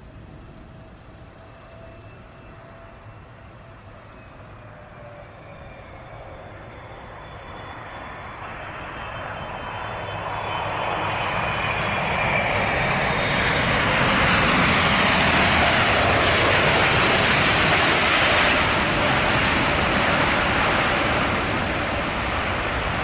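Boeing 777 freighter's twin jet engines during the landing rollout. A faint, slowly falling engine whine at first, then the engine noise builds to a loud, steady peak a little past the middle and eases off slightly near the end as the aircraft rolls past on the runway.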